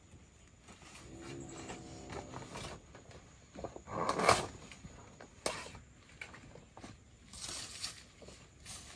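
Banana leaf rustling as it is handled and cut from the plant, with the loudest rustle about four seconds in and another near the end.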